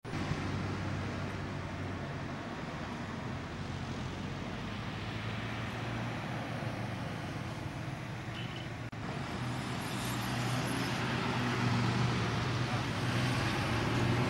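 Car engine and tyres as a car drives past close by, over a steady low hum of traffic. There is a brief dropout about nine seconds in, after which the sound is a little louder.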